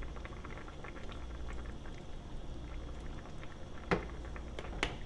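Kimchi jjigae boiling in a small pot: a steady bubbling with many small pops. Two sharp clicks about a second apart come near the end.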